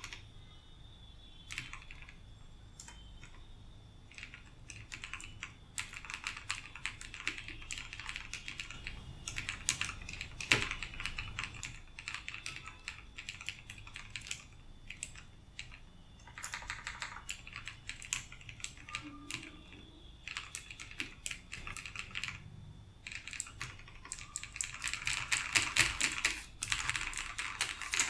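Typing on a TVS Bharat Gold mechanical keyboard with Long Hua Blue switches (Cherry MX Blue clones) lubed with coconut oil: runs of fast, clicky keystrokes broken by short pauses, busiest near the end.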